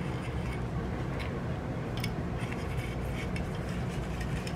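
Small clicks and light rubbing as a camera rangefinder assembly is handled and wiped with lens-cleaning tissue, over a steady low hum.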